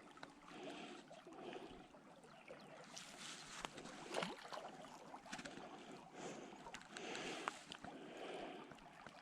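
Small mountain creek trickling faintly over stones, with a few short clicks and small splashes about three to four seconds in.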